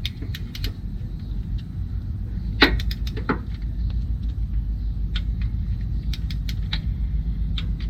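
Scattered sharp metallic clicks and clinks of a socket wrench being fitted to and worked on engine bolts, at irregular intervals over a low steady rumble.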